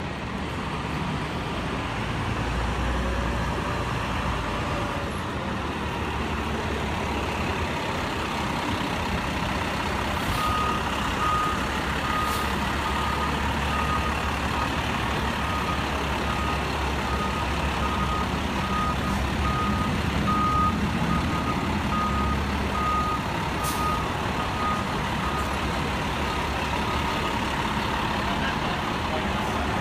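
Fire engine's diesel engine running steadily as the truck backs up. Its reversing alarm starts beeping about a third of the way in and repeats evenly until near the end.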